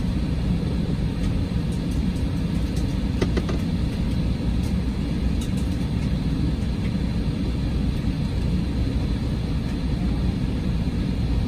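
Steady low rumble inside the cabin of an Airbus A320 airliner before takeoff, with a faint click about three seconds in.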